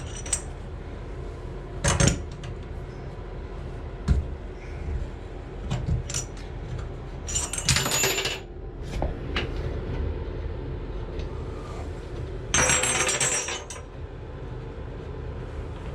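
Crescent wrench working a brass tub/shower valve stem loose: sharp metal clinks and knocks, with two longer grating metal-on-metal scrapes about a second each, around 7 and 12 seconds in.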